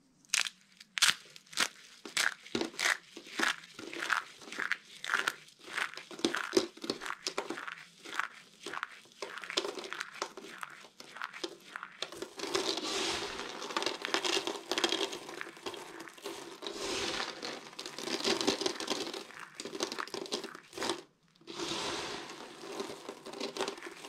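A rose of dry, brittle soap curls being crushed by hand, giving a quick run of sharp cracks and snaps. About halfway through this gives way to continuous crunching and rustling as handfuls of broken soap flakes are squeezed and stirred, with a brief pause near the end.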